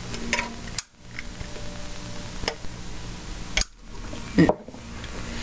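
A few short, sharp clicks and scrapes of small hard parts being handled, the loudest about four and a half seconds in, as the child-safety nozzle on a can of Zippo lighter fluid is pried open with the tip of a Zippo lighter case.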